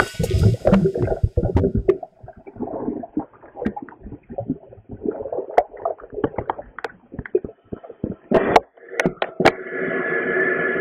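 Shallow sea water sloshing and gurgling around a camera held half-submerged at the surface, muffled, with many scattered clicks and knocks as it moves through the water. Near the end the noise turns into a steadier rush.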